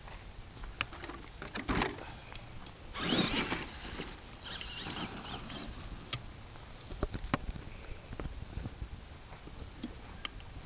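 Brushed electric RC monster truck, an ECX AMP MT on a 3S battery, driving across a dirt and grass yard: uneven bursts of motor and tyre noise, the loudest about three seconds in, with scattered clicks and ticks.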